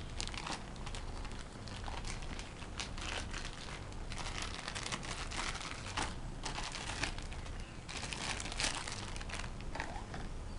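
Clear plastic bag crinkling in irregular crackles as a pair of sunglasses wrapped in it is handled.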